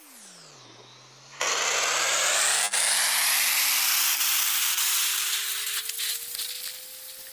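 Starship SN8's Raptor rocket engines relighting for the flip and landing burn: a loud rushing roar cuts in suddenly about a second and a half in and holds until about six seconds, then tapers off. A single tone falls in pitch before the roar and climbs slowly during it. The audio is played back sped up.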